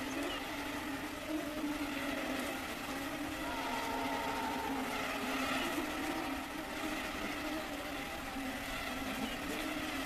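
Mosquitoes buzzing: a steady whining drone of several wavering pitches.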